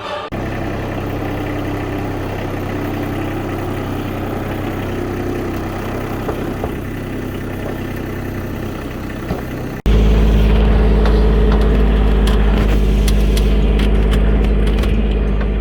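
A motor vehicle's engine running steadily. About ten seconds in, it cuts abruptly to a louder, deeper engine rumble.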